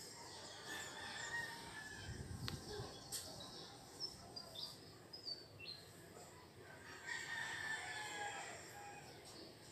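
Faint rooster crowing twice, with a few short, high bird chirps in between.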